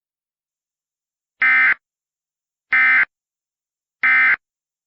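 Emergency Alert System end-of-message tones: three identical short bursts of SAME digital data, a little over a second apart, signalling that the alert has ended.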